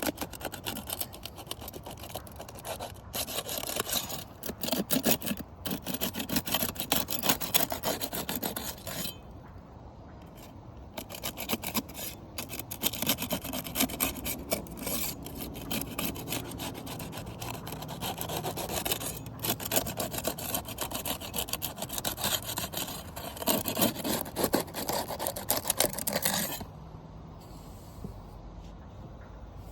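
A flat seal-breaking tool scraping and rasping as it is forced under asphalt roof shingles to break their stuck adhesive seal strips. It runs in long rough stretches, with a short break about nine seconds in, and stops about 26 seconds in.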